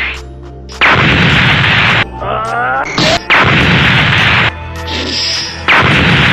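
Fight sound effects: three loud blasts like explosions, each starting suddenly and lasting about a second, with a short rising whine between the first two, over music.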